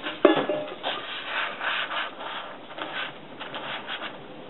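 Paper being rubbed and pressed against a tin can by hand, a run of irregular scratchy rustles with the loudest stroke just after the start.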